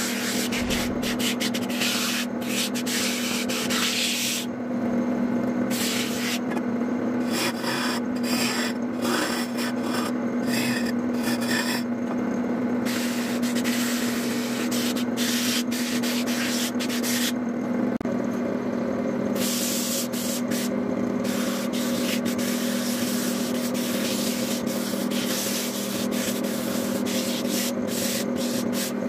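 Wood lathe running with a steady hum while a spinning wooden table leg is worked by hand; a rasping hiss of the tool and abrasive against the wood comes and goes in stretches.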